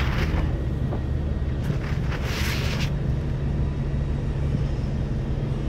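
Diesel engines of double-decker buses in street traffic, a steady low rumble throughout. A short burst of hiss comes about two seconds in.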